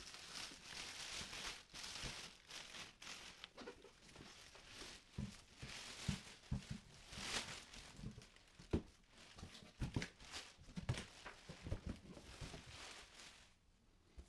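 Faint rustling and crinkling of packaging, with scattered light clicks and knocks, as a boxed electric bidet seat is unwrapped and handled.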